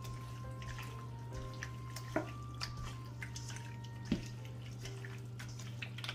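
Hands squeezing and mixing sliced raw beef in a sticky marinade of honey, soy sauce, cornstarch and dry seasonings in a stainless steel bowl: wet squelching and small sticky clicks, with two sharper clicks about two seconds apart. Quiet background music plays under it.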